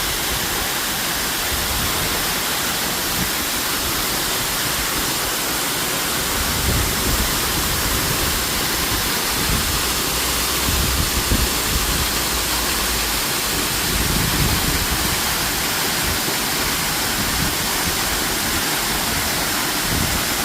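Artificial waterfall: a steady rush of water falling and splashing. Low rumbles swell and fade a few times in the middle.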